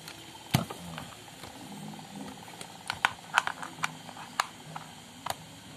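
A handful of sharp plastic clicks and knocks spread over a few seconds, from an electric plug being worked against a tight power-strip socket.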